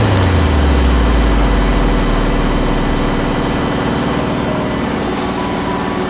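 Samsung WF80F5E0W4W front-loading washing machine in its final spin with a badly unbalanced load, the cabinet shaking violently. A loud, steady mechanical running with fast low pulsing; a deep hum drops in pitch over the first two seconds, then holds low.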